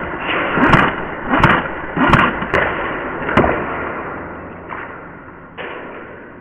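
A series of sharp knocks and thuds, about one every three quarters of a second, that stop after about three and a half seconds; one softer knock comes near the end.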